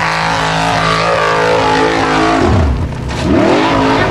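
Formula Offroad buggy's engine held at high revs on full throttle up a steep dirt climb. The revs fall away about two and a half seconds in, followed by short rising and falling blips, as the buggy fails the climb and tips over backward.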